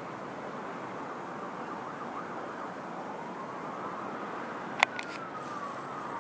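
Distant emergency-vehicle siren wailing, rising in pitch and then slowly falling, over a steady city hiss. A sharp click comes about five seconds in.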